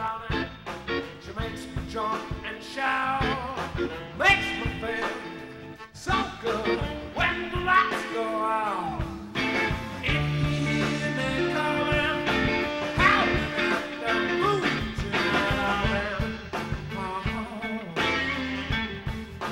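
Live electric blues band playing: a steady drum beat and bass under a lead line that bends and slides in pitch.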